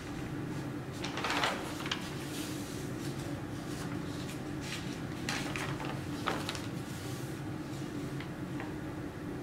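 Pages of a thick paper notebook scrapbook with glued-in photographs being turned by hand: paper rustles and flaps about a second in and again around five to six seconds in, over a steady low hum.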